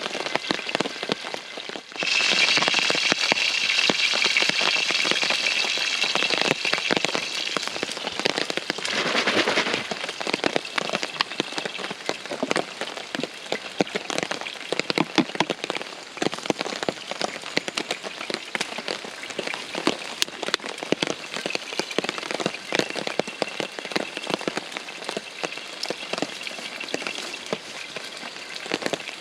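Heavy rain drumming on a tarp shelter as a dense, steady patter of drops. A louder, higher hiss joins in about two seconds in and fades by about ten seconds.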